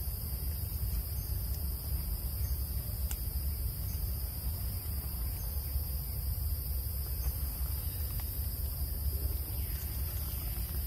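Steady, unbroken high-pitched drone of a forest insect chorus, crickets or cicadas, over a low steady rumble, with a few faint ticks.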